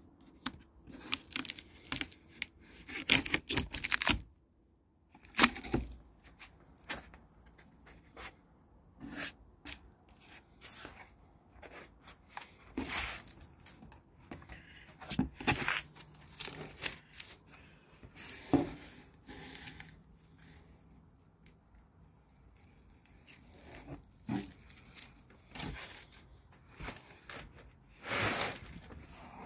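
Cardboard shipping box being opened by hand: packing tape tearing and cardboard flaps and inserts scraping and rustling, in irregular bursts with short pauses.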